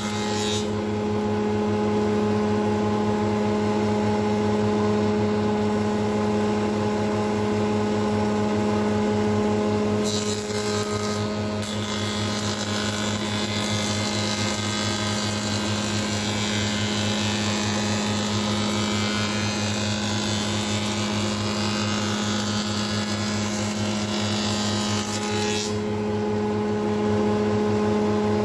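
Spindle moulder running with a steady hum while its cutter machines a strip of red deal (pine). A hissing cutting sound stops briefly about ten seconds in, then resumes, and stops again near the end, leaving the machine running without a load.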